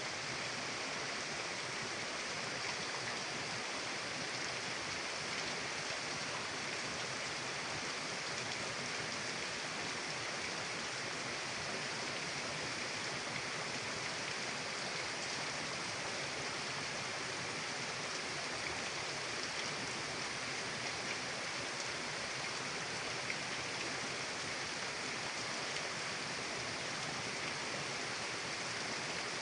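Mountain river running steadily, an even rushing of water with no changes.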